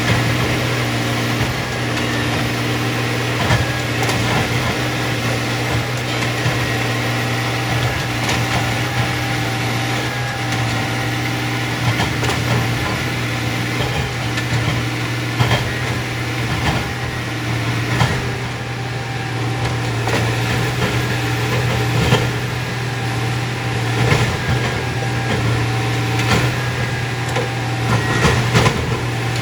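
Diesel engines of railroad track maintenance machines running steadily, with irregular sharp metallic clanks as the machines work the ties, plates and spikes.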